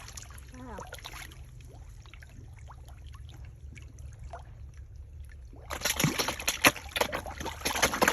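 Faint water trickling with small splashes, then about six seconds in a sudden spell of loud, busy splashing as a school of catfish thrash at the water's surface while feeding.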